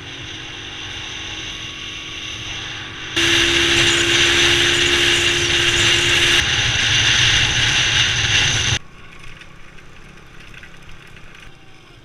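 Motorbike riding noise: the engine running steadily under road and wind noise, in three spliced stretches. The loudest runs from about 3 to 9 seconds in, with a steady engine tone and a strong hiss, and the sound drops to a quieter rattle for the rest.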